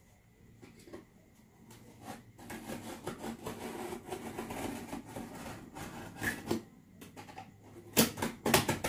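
Utility knife sawing through corrugated cardboard: a rasping scrape that starts about two and a half seconds in and runs on, with a few sharp knocks near the end.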